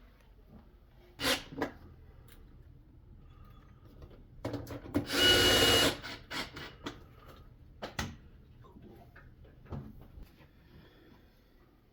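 Power drill/driver running in one short burst of about a second, with a steady whine, amid scattered knocks and clicks of tools and panels being handled during the refrigerator repair.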